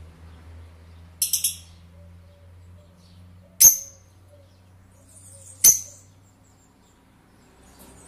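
Rosy-faced lovebird calling: a quick run of three high chirps about a second in, then two loud, sharp, shrill calls about two seconds apart.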